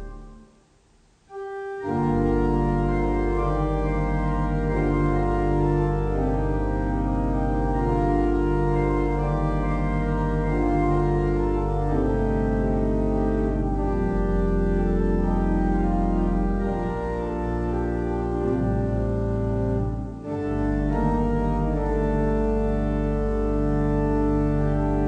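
Pipe organ playing held chords that change every second or two, with a break of about a second near the start and a brief dip about twenty seconds in.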